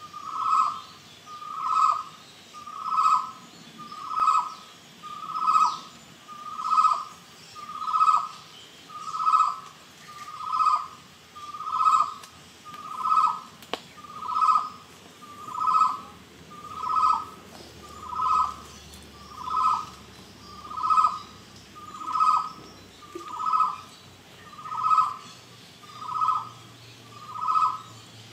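Necklaced partridge calling: a single short hooting whistle, repeated steadily about once every 1.3 seconds, over faint high chirping.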